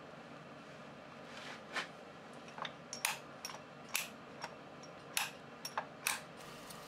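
Light metallic clicks and clinks, about a dozen at irregular intervals starting about a second and a half in, as the clamping parts under a lathe tailstock are handled and knock against each other.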